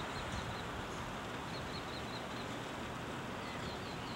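Steady outdoor rushing noise under an approaching thunderstorm. Over it a small bird chirps in three short runs of quick, high notes: one near the start, one in the middle and one near the end.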